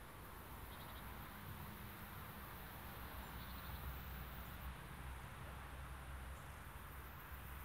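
Faint outdoor ambience of insects chirring in the summer heat, over a low distant rumble from an airliner's jet engines far down the runway.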